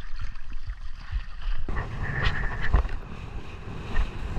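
Water rushing and splashing, with wind rumbling on an action-camera microphone, as a kitesurfer is pulled through the sea by the kite. The rush becomes fuller about two seconds in.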